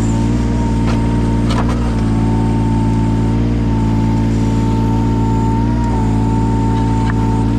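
Yanmar 017 mini excavator's diesel engine running steadily under work, with a steady high whine whose pitch dips briefly a few times, and a couple of sharp clicks.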